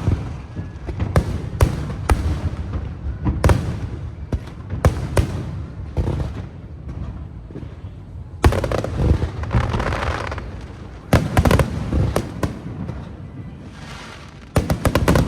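Fireworks display: aerial shells bursting in a series of sharp bangs over a low rumble. There is a denser stretch of bursts about halfway, and a quick volley of bangs near the end.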